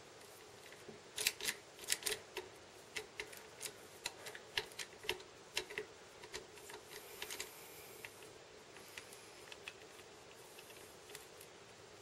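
Faint, irregular clicks and ticks of a small screwdriver turning out the SSD's retaining screw in a 2013 Mac Pro, a few a second, thinning out in the last few seconds.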